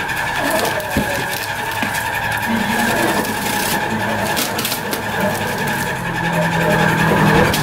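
Cardboard shipping box being slit open with a box cutter and its flaps pulled back, the tape and cardboard giving a few sharp scrapes and rips. Under it runs a steady, fairly loud whining hiss.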